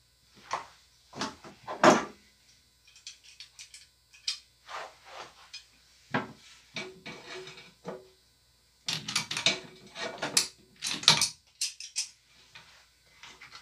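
Knocks, clinks and scrapes of hard plastic and metal as the plastic locking ring and fill-valve parts under a toilet tank are worked loose with the hands and a small wrench. The sounds come in irregular clusters, loudest near the start and in a busy run about two-thirds through.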